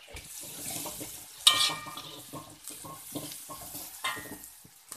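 Chopped chillies, shallots and garlic sizzling in hot oil in a metal wok, stirred and scraped with a slotted metal spatula. One sharp ringing clang of spatula on wok comes about a second and a half in. This is the aromatics being sautéed before the chicken feet go in.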